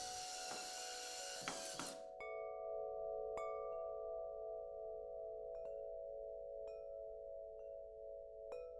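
Tuned metal wind chimes ringing: a bright shimmering swell for about the first two seconds, then a few irregular strikes whose deep tones ring on and overlap with a long sustain.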